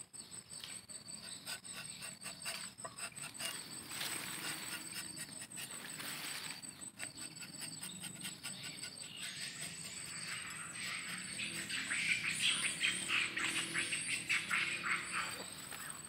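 Hooked rubber-tapping knife shaving a thin strip of bark from a rubber tree's low tapping panel: a run of short scratchy scraping strokes, thicker and louder in the second half. A steady high insect trill runs behind it.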